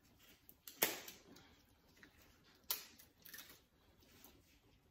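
Eating sounds from boiled crab: a few sharp wet clicks and smacks, the two loudest about a second in and just under three seconds in, with fainter ones between.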